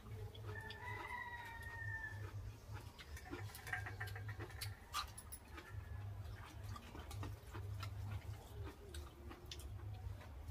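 Quiet eating sounds: small clicks and scrapes of fingers and food on steel plates and bowls, with chewing, over a low steady hum. A faint held whistle-like tone sounds for under two seconds near the start.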